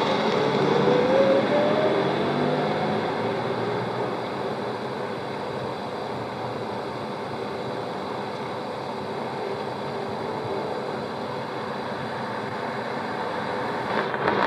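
Muffled motor vehicle noise, a motor's pitch rising over the first few seconds, then a steady noisy hum, all thick with hiss from repeated tape re-recording. A brief click near the end.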